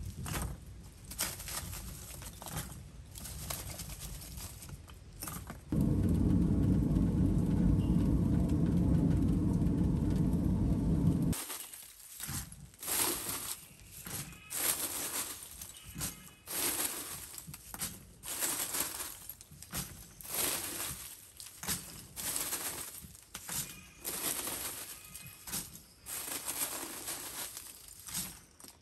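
Sticks and charcoal clattering at a small clay smelting furnace, with a loud steady rushing noise for about six seconds that stops abruptly. After that come repeated knocks, scrapes and crunches of charcoal as a glowing iron bloom is dug out of the furnace.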